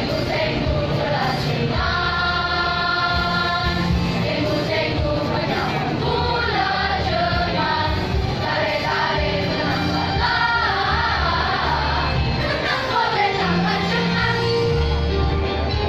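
A children's school choir singing together with instrumental accompaniment; the voices move through held notes and quicker changing phrases over steady low notes.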